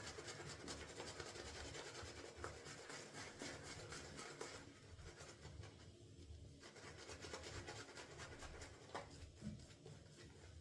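Shaving brush with a 26 mm mixed knot scrubbing soap lather on the face: a faint, rhythmic soft rubbing that grows quieter about halfway through.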